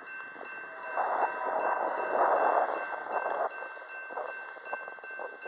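Railroad grade-crossing warning bell ringing while the crossing signals are active, with wind noise on the microphone swelling and fading.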